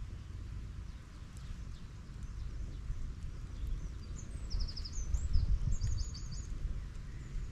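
Wind rumbling on the microphone in gusts, strongest a little past halfway. A small songbird sings a quick run of high chirps and trills about halfway through.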